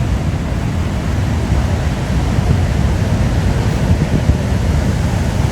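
Ocean waves washing against the shore, mixed with wind buffeting the microphone: a steady, even rush of noise, deepest in the low end, with no single crash standing out.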